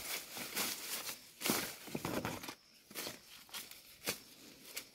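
Leaves and undergrowth rustling and crackling as a stick is pushed through the plants, in short irregular scrapes.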